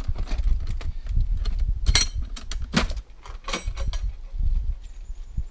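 Loose flat rocks and a metal ammo can knocking and scraping as they are shifted by hand to get the can out from under the rocks. A handful of sharp clacks, the loudest about two seconds in, over a steady low rumble.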